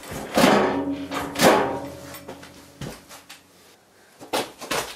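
Two drawn-out metal scraping or creaking sounds in the first two seconds, then a few light knocks near the end, as parts of the split tractor's bell housing are handled.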